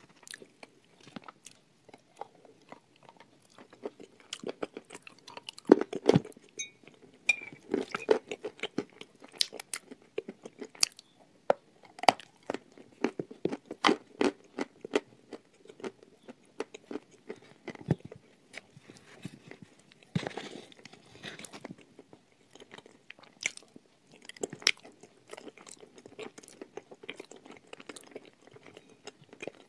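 Chewing and crunching mouthfuls of edible chalk and grey clay: many sharp, irregular crunches as the hard pieces break between the teeth, with wetter chewing in between.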